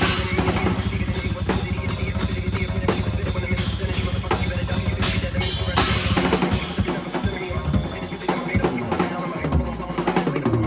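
Acoustic drum kit played fast and busy, with dense snare, rimshot and bass drum hits and rolls, over a backing track whose low bass thins out a little past halfway.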